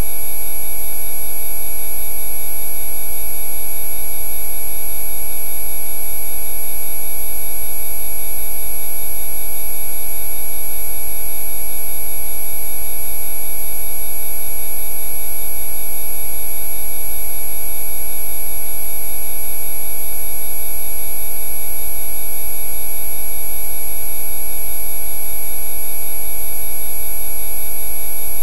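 Synthesized Rife-frequency drone: many pure electronic tones layered and held steady without change, over a low rumble in the bass.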